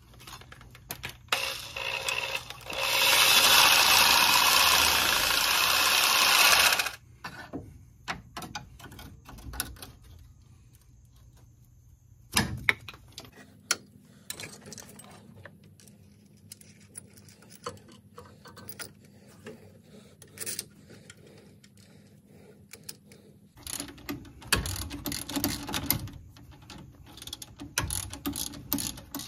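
Metal parts and hand tools clicking and clattering while a new sway bar end link is fitted to a truck's front suspension. About three seconds in, a loud steady rushing noise runs for about four seconds. Near the end comes a run of quick ticks as a wrench works the end link from below.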